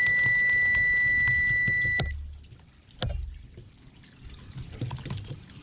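A steady electronic test tone from a bird hearing test, held for about two seconds and cut off sharply with a click. A single sharp knock follows about a second later.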